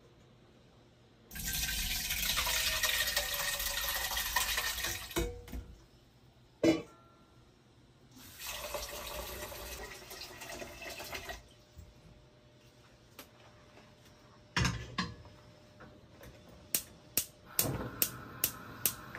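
Kitchen tap running water over sago pearls, then filling a stainless steel cooking pot, with a few knocks of metal cookware in between. Near the end a gas range's igniter clicks about five times, roughly twice a second, and the burner lights with a steady hiss.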